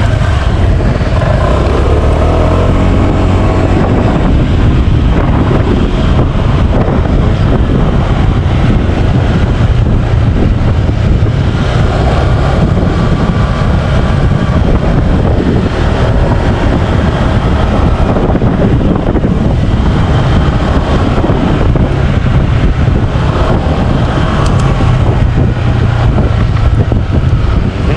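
Motorcycle being ridden along a road: the engine runs steadily under heavy wind rumble on the microphone.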